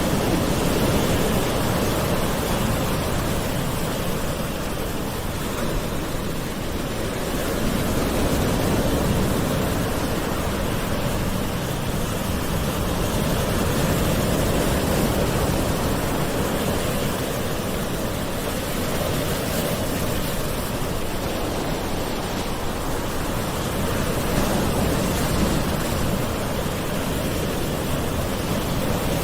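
Gentle ocean waves washing ashore in a steady wash of surf, swelling and easing slowly every few seconds.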